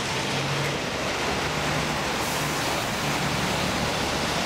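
Steady road traffic noise: tyres and engines of a car and a box truck passing close by on a city highway, with a low engine hum running through it.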